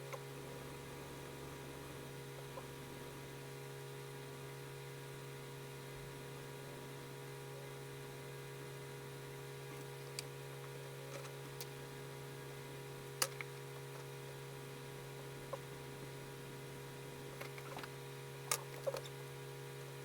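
Steady electrical hum, with a few sharp ticks scattered through the second half: the loudest about 13 seconds in, and two close together near the end.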